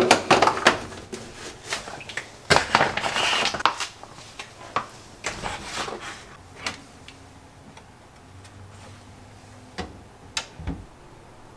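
Household items being handled and set down while storing them on a laundry rack: a quick run of knocks, clicks and rustling for the first few seconds, then scattered taps, and a couple of dull knocks near the end.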